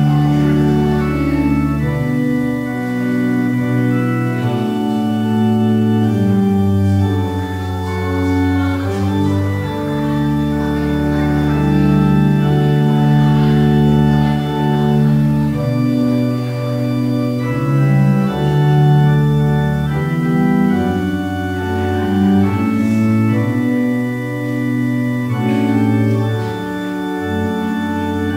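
Organ playing slow, sustained chords over a deep held bass, the chords changing every second or two.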